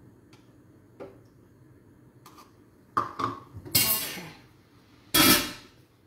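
Clatter of steel cookware: a few sharp clanks and knocks, the loudest about five seconds in, as a large metal lid is set onto a wide frying pan.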